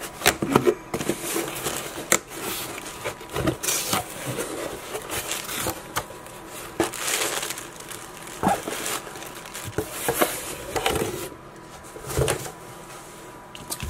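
Cardboard shipping box being opened and handled, with plastic air-pillow packing crinkling as a shrink-wrapped book is lifted out. Irregular rustles, scrapes and light taps.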